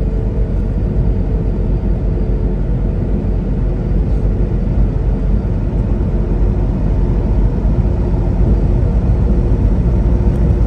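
Semi-truck under way: steady low engine and road rumble, with a few faint steady tones, growing a little louder near the end.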